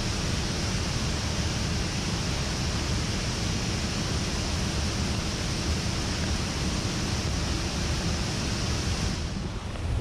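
Steady rushing of water, a dense, even noise with no break. The high hiss thins out shortly before the end.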